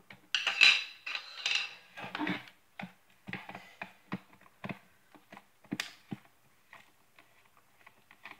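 Plastic casing of a partly unscrewed radio-control transmitter handled in the hand, with something loose rattling inside. A dense clatter comes in the first couple of seconds, then scattered light clicks and knocks of plastic.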